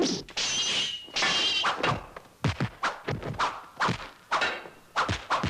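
A rapid series of heavy thunk sound effects, about two a second, each dropping quickly in pitch. Brief high whistling tones sound in the first second.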